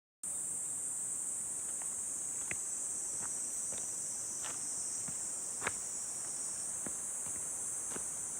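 A steady, high-pitched chorus of summer insects buzzing, cutting in abruptly just after the start. Scattered faint clicks and taps sound through it.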